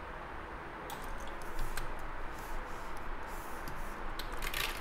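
Faint scattered clicks and taps of a computer drawing setup (stylus, mouse and keys), with a quick cluster of louder clicks near the end, over a low steady room hum.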